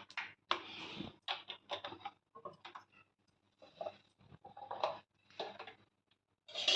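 Sesame oil being poured into a heated kadai, heard as short, irregular splashing and trickling bursts with brief gaps between them.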